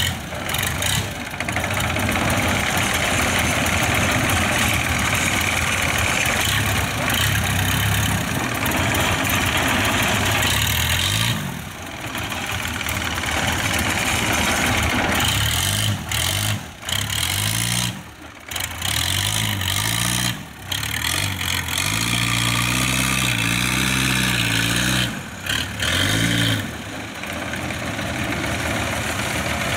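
Kubota combine harvester's diesel engine running hard as the machine drives along. Its engine tone rises and falls several times in the second half, with a few brief dips in loudness.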